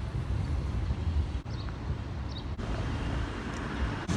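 Outdoor city-square ambience: a steady low rumble of road traffic, briefly broken a few times, with a couple of faint high chirps.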